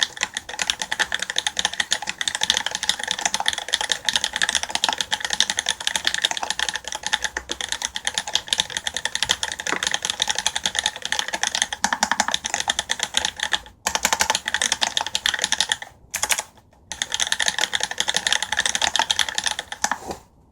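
Continuous fast typing on a custom mechanical keyboard with lubed vintage Cherry MX Black linear switches and tuned stabilizers, in a stainless-steel plate and aluminium bottom case. It makes a dense stream of keystrokes, broken by a few short pauses in the last third.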